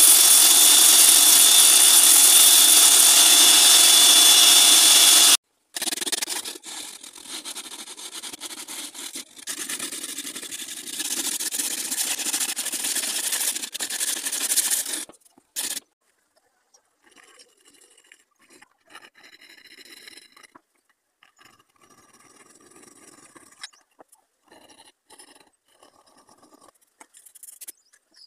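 Belt grinder running steadily and loudly, cutting off sharply about five seconds in. Then a wooden knife handle is sanded by hand in uneven rubbing strokes, which give way about halfway through to faint, on-and-off light rubbing.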